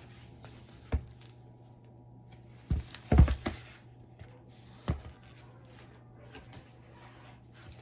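A paper picture book being handled: a few dull thumps and taps, one about a second in, a cluster around three seconds and one near five seconds, as the printed button is pressed and the page turned, over a steady low hum.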